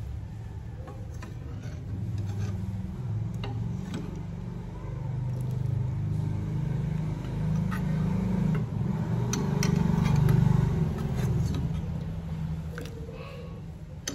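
A low rumble that swells and peaks about ten seconds in, then eases off. Over it come light clicks and scrapes of a metal ladle dipping and stirring in a pot of soup.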